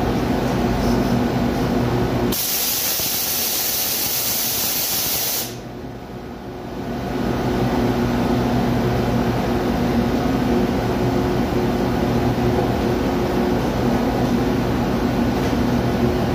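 Steady machinery hum, broken by a loud hiss of escaping compressed air that starts about two seconds in and cuts off suddenly about three seconds later. The hum drops briefly after the hiss and then comes back.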